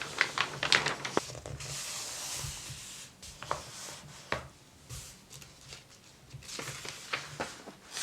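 Paper of a 1970 JC Penney catalog being handled and a page turned: rustling and rubbing, with one long swish about two seconds in and a few short crisp ticks.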